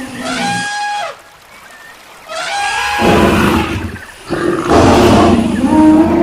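Wild animal stampede sound effect: two short pitched animal calls with a quieter gap between them, then a loud, dense rumble of a running herd from about three seconds in, breaking off briefly near four seconds before resuming.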